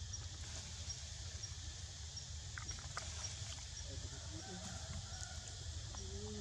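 Outdoor ambience: a steady low rumble with a faint high chirp repeating about twice a second, and a few faint distant animal calls near the middle.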